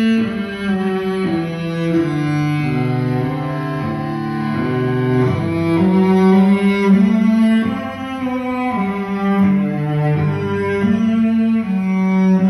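Instrumental music played back from an AEG M15A reel-to-reel tape machine over loudspeakers: a low, melodic line of sustained notes that move from pitch to pitch every second or so.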